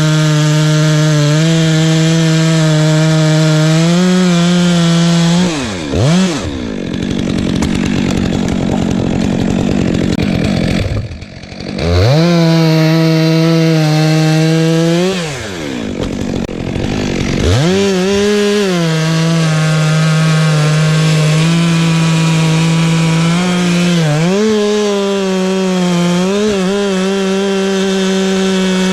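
Two-stroke chainsaw running at high revs while cutting wood. The throttle is let off several times, the engine pitch dropping away and then rising again as the saw revs back up.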